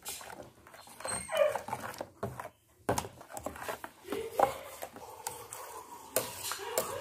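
Metal spoon stirring a thick chutney in a steel bowl, scraping and clicking against the sides, with a few short, falling whining squeals, the clearest about a second in.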